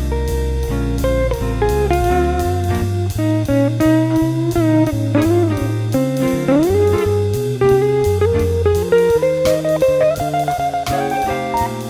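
Jazzy blues instrumental: an electric guitar plays a lead line with pitch bends over a stepping bass line and a steady beat.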